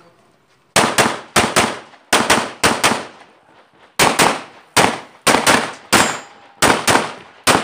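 Semi-automatic pistol fired in a rapid string of about twenty shots, mostly in quick pairs (double-taps). The string starts just under a second in, with a short gap around three to four seconds in. It is a timed run on a practice stage.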